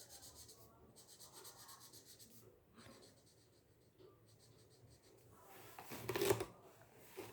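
Felt-tip marker scratching on paper in quick, rhythmic back-and-forth colouring strokes, which grow quieter after about two and a half seconds. A louder scuff of handling comes about six seconds in.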